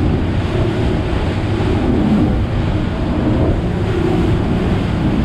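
Boat running at cruising speed on open sea: a steady drone of engine, rushing water and wind on the microphone.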